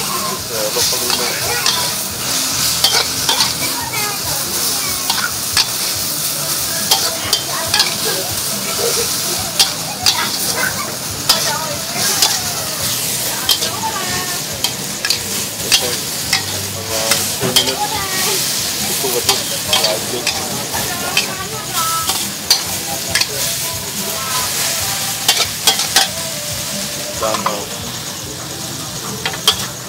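Pork, noodles and vegetables sizzling in a hot metal wok while being stir-fried, with a metal spatula scraping and clacking against the pan many times over the continuous sizzle.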